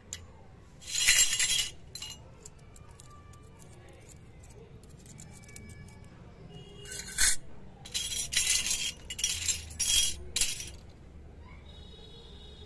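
Miniature stainless-steel toy spoons and forks clinking against each other as they are handled. There is a short burst of clinks about a second in, then a longer run of clinks in the second half.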